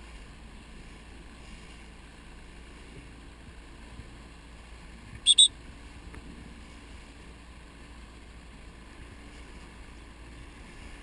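Steady wind and water noise on open water, broken about five seconds in by two quick, shrill whistle blasts, the signal for the dinghies in an on-the-whistle drill to make their next manoeuvre.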